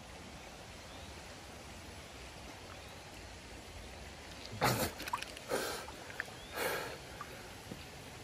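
Shallow forest stream water lapping around a man wading neck-deep, with three short splashes about a second apart a little past the middle.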